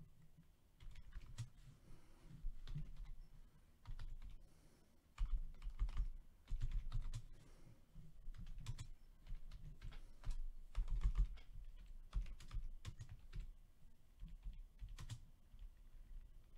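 Typing on a computer keyboard: irregular clusters of key clicks and taps with short pauses between them.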